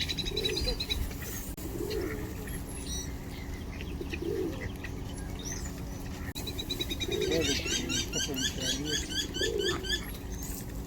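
Pigeons cooing, low coos repeating every couple of seconds, with small birds chirping over them and a long run of quick high chirps in the second half.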